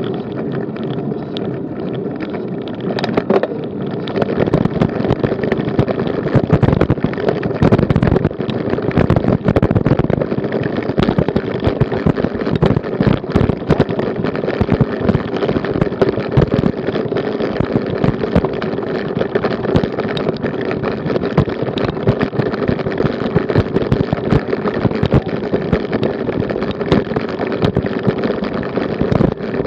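Road bicycle riding up a cobblestone climb: a constant jarring rattle and knocking of tyres and bike over the stones, with wind on the microphone and a steady hum underneath. About four seconds in, the smoother rolling noise of tarmac gives way to the cobble rattle.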